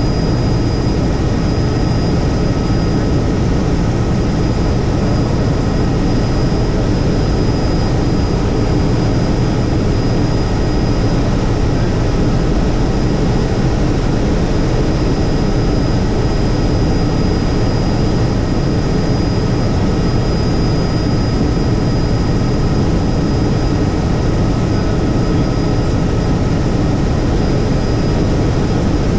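Helicopter in flight: a steady, loud rotor and engine noise, heavy in the low end, with a few thin steady whines above it.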